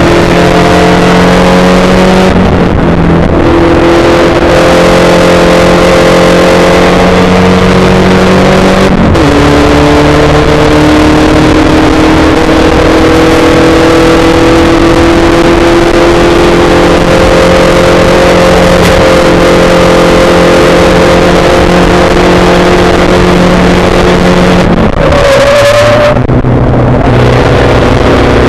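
Spec Racer Ford's four-cylinder engine at full throttle, heard from the onboard camera. Its pitch climbs steadily, with a sudden drop at each upshift about two and a half and nine seconds in. Near the end it lifts off for a corner, then comes back on the throttle and rises again.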